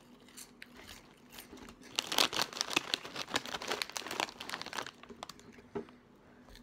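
Plastic snack bag crinkling as a hand rummages inside it for a cheese puff. The crinkling is loudest for about three seconds in the middle.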